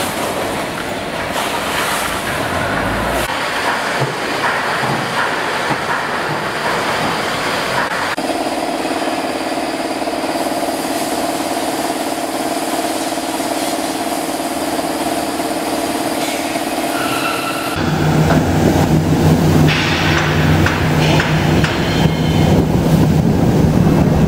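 3E SWTF40100 plastic-film shredder running, its motor and blade rotor giving a steady hum. About 18 seconds in it turns louder and rougher as plastic film is fed in and shredded under load.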